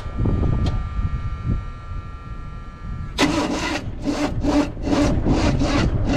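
International Harvester wrecker truck engine being cranked by the starter, with an even, rhythmic chug that begins about three seconds in and does not catch. It has just had a new ignition control module fitted. A steady high whine runs under the rumble before the cranking starts.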